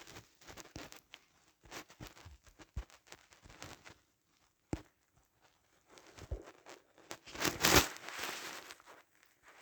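Irregular rustling and crinkling with scattered sharp clicks, swelling into a louder rustle about seven and a half seconds in.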